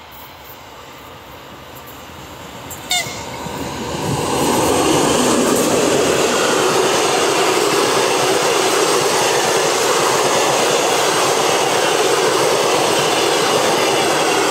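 Passenger train hauled by a TEP70BS diesel locomotive, approaching and then passing close at speed. Its rumble rises over the first few seconds and settles into a steady loud rush of wheels on rail as the coaches go by. A short sharp click sounds about three seconds in.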